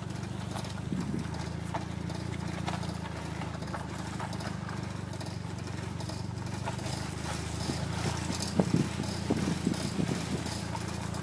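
Toyota MR2's driver-side front wheel knocking and clicking in an uneven rhythm while turning left, over the steady low hum of the car's engine; the knocks grow louder and more frequent about eight seconds in. The cause is unknown.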